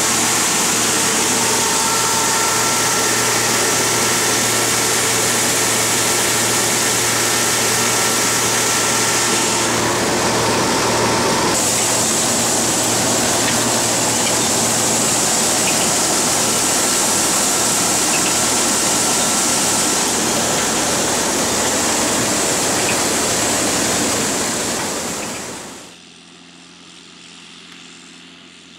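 Loud, steady engine and machinery noise with a few faint steady whining tones, dying away about 25 seconds in to a much quieter hum.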